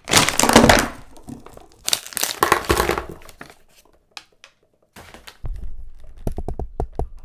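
Thin plastic foil bag crinkling loudly as it is torn open and pulled apart, in two bursts. From about five seconds in, its contents of small packets and plastic eggs tumble onto the table with a quick run of knocks.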